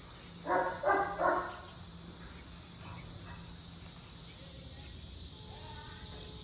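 A dog barks three times in quick succession, about half a second to a second and a half in, over a steady high hiss.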